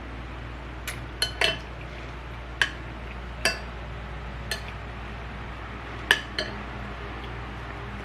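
Metal cutlery clinking against a dish while eating: about eight sharp, short clinks at irregular intervals, each with a brief ring.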